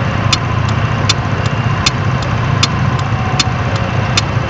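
Jet SR scooter's single-cylinder engine idling steadily at a standstill, heard close up. Over it runs a regular sharp ticking: a strong tick about every three-quarters of a second, with a fainter one between.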